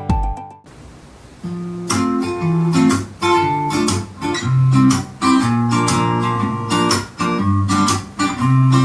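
Strummed acoustic-guitar music with low bass notes, played through Sharp MD-X10S two-way bass-reflex bookshelf speakers. An earlier piece cuts off in the first second, and after a short quiet gap the guitar strumming begins.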